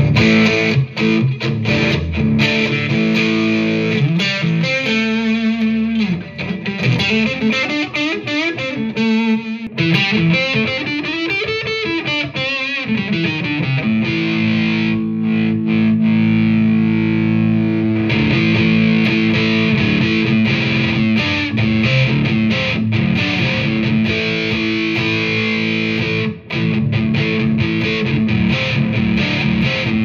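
Latitude Lark Telecaster-style solid-body electric guitar played through a Fender GTX100 amp with overdrive. It plays ringing chords and lead phrases, with wavering, bent notes in the middle and long held chords in the second half.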